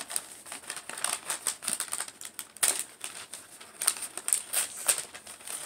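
Wrapping paper being torn and crinkled as a gift is unwrapped, in quick irregular crackles and rips.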